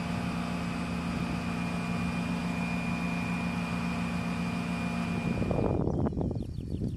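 A machine runs steadily beside a parked helicopter, a constant hum with a high-pitched whine. It cuts off suddenly about five and a half seconds in and gives way to uneven, gusty low buffeting.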